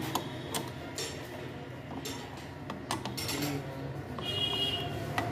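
Irregular metallic clicks and clinks of a T-handle socket wrench on the clutch spring bolts of a motorcycle clutch, as the bolts are tightened during reassembly. A brief high squeak comes about four seconds in.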